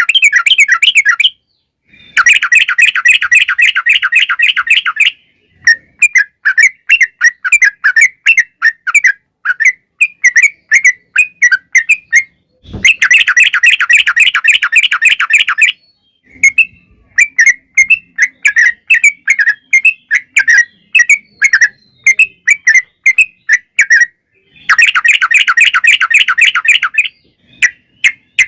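Trucukan bulbul singing: long, fast rattling trills of about three seconds each, three times, alternating with runs of separate chirping notes. A single low thump comes about halfway through.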